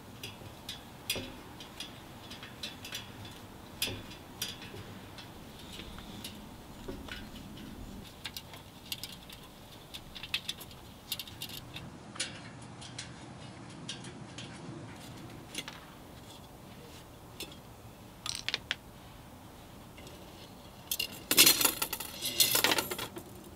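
Spoke nipples being loosened on a bicycle rim with a three-way spoke wrench: scattered small metallic clicks and clinks from the wrench, nipples and spokes. Near the end comes a louder clattering rattle as the rim is pulled off the loosened spokes.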